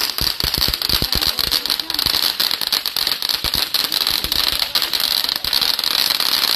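Ground fountain firework spraying sparks, giving a dense, continuous crackle of small rapid pops over a steady high hiss.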